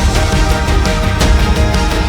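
Background music with a heavy, steady beat and sustained pitched notes.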